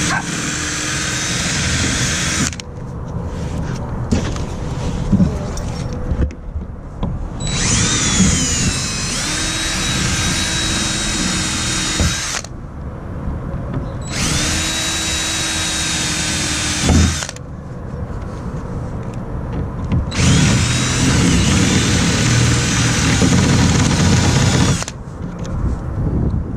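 Cordless drill running in four bursts of a few seconds each, with pauses between, as it drills out the pop rivets holding a plastic kayak's side handle. Its whine sags in pitch and recovers once as the bit bites. A few short knocks come in the pauses.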